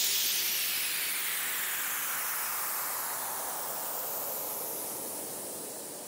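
A white-noise sweep ending a song: a hiss whose tone slides downward as it slowly fades out.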